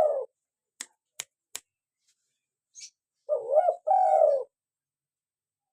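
Spotted dove (tekukur) cooing: the end of one coo phrase, then about three seconds in a full two-part coo, wavering in pitch. Three sharp clicks fall between the phrases.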